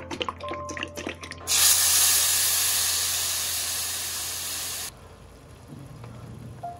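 Blended tomato purée poured into hot oil in a frying pan, sizzling and hissing loudly. The sizzle starts suddenly about a second and a half in, slowly dies down over about three seconds, then drops to a much quieter cooking sound.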